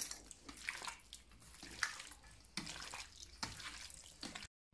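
A hand squishing and kneading raw beef chunks in a wet marinade of beer, potato starch and seasonings in a stainless steel bowl: a fairly faint run of short, wet squelches, about six, under a second apart, cutting off suddenly near the end.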